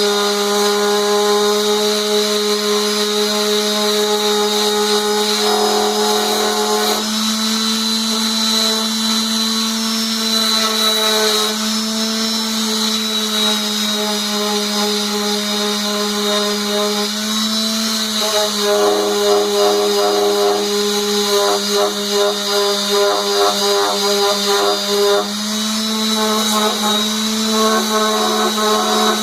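Homemade wood lathe running with a steady motor hum and high whine as a large off-center maple bowl spins at about 500 rpm for sanding. The pitch steps slightly a few times, and a rougher, fluttering sound joins in for several seconds in the second half.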